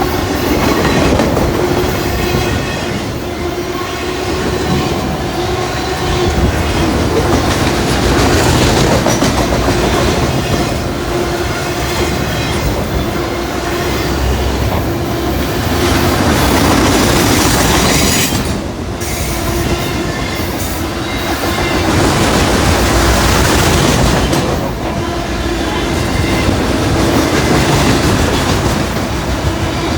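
Long Norfolk Southern freight train with a DPU passing at speed: steel wheels clatter over the rail joints, with a steady tone underneath from the wheels on the rails. The loudness dips briefly twice, about two-thirds of the way through and again a few seconds later.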